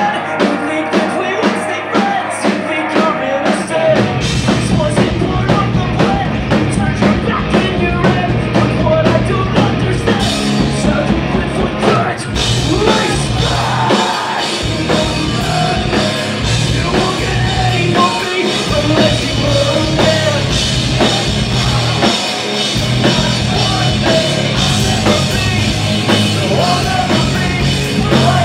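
Loud live rock band playing from the audience floor, heard on a single camera's microphone: sung vocals over electric guitars, bass guitar and a drum kit. About four seconds in the bass and drums come in fully, and from about twelve seconds in the cymbals grow louder.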